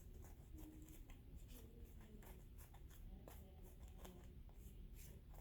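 Faint, quick ticks and scrapes of baseball trading cards being slid one behind another while a pack is flipped through, several a second.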